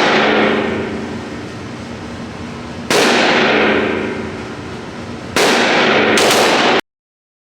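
Gunshots from a firearm at a shooting range: three shots, the last two less than a second apart, each followed by a long ringing echo, with the ring of a shot just before also carrying in. The sound cuts off abruptly to dead silence near the end.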